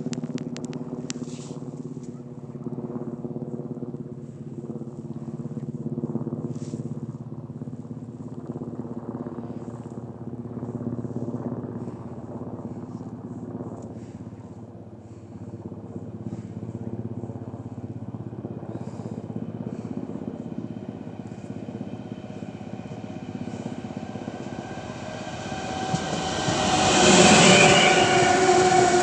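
A 3ES5K Ermak three-section electric locomotive hauling a freight train approaches with a steady, many-toned droning hum that builds slowly. Near the end it passes close by and the sound swells into a loud rush of wheels on rails.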